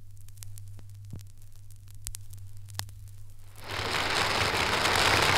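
Acetate disc playback surface noise: a low steady hum with scattered clicks and crackle. About three and a half seconds in, a much louder, even rush of noise comes in suddenly and holds.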